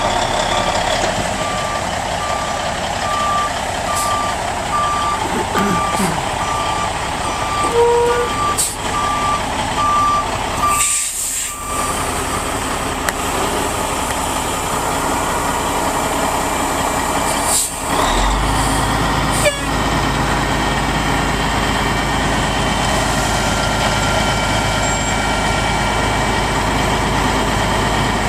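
Heavy diesel equipment's backup alarm beeping steadily, about one beep a second, over running engine noise, stopping about twelve seconds in. From about eighteen seconds in, a diesel engine idles with a low steady hum.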